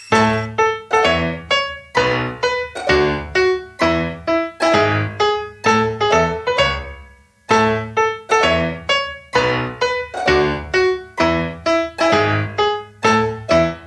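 Background music on a keyboard: a bouncy run of short, decaying notes, about two a second, with a brief pause about halfway through.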